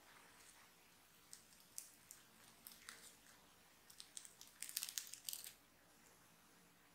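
Freshly baked focaccia being torn apart by hand: the crisp crust crackles in scattered small snaps, then a denser burst of crackling about five seconds in as the piece pulls away.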